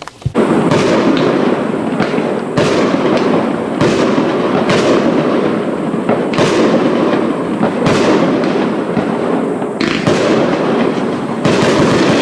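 Aerial fireworks display: shells bursting one after another with a sharp bang every one to two seconds over a continuous crackle and rumble, all starting suddenly just after the beginning.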